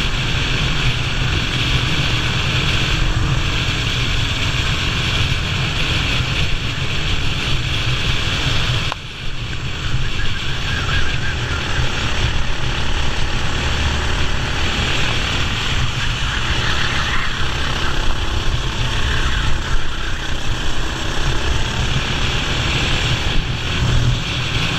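Racing kart's two-stroke engine running hard at race pace, with heavy wind rush on the onboard microphone. The level dips briefly about nine seconds in.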